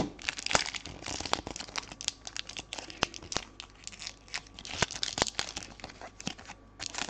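Foil wrapper of a Panini Adrenalyn XL trading-card pack being torn open and crinkled in the hands: a quick, irregular run of sharp crackles.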